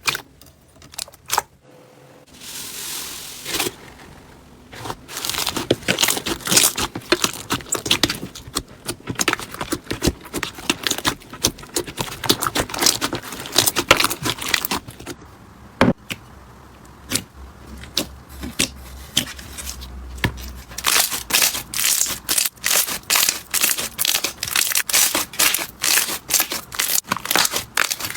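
Slime being squeezed, stretched and poked by hand, giving dense, rapid crackling and popping clicks.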